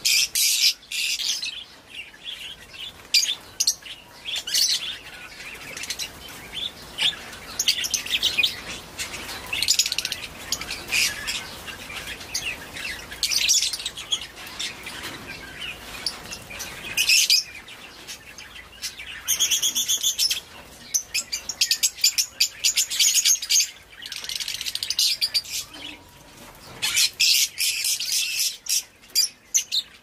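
Small aviary birds, budgerigars, lovebirds and finches, chirping and chattering in quick, repeated bursts, with one longer call about two-thirds of the way through.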